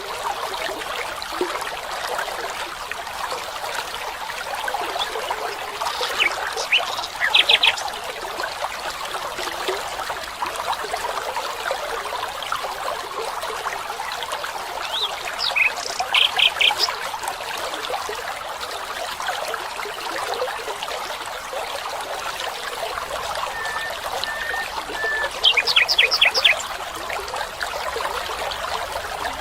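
A stream trickling and running steadily, with a bird calling three times, each call a quick burst of short high notes.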